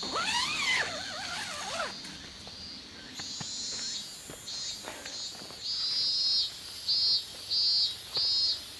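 Insects chirping outdoors in regular pulses, about two bursts a second and growing louder over the last few seconds. Near the start, a louder call-like sound wavers up and down in pitch for about two seconds.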